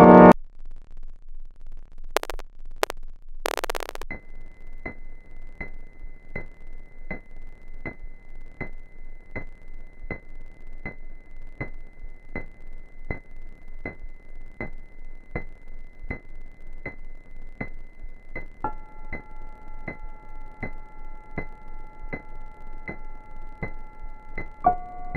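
Electronic synthesizer score: a loud buzzing chord cuts off abruptly, a few short bursts of static follow, then a steady high synth tone sounds over an even ticking pulse at a little under one and a half ticks a second. Lower held tones join later on and shift near the end.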